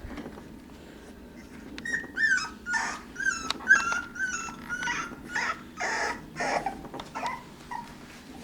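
Young puppies whimpering in a run of short, high whines and squeaks, starting about two seconds in and dying away near the end.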